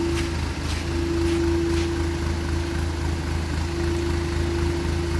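JAC N56 truck's 2.8-litre turbodiesel engine idling steadily, with a steady whine that drops out and returns a few times.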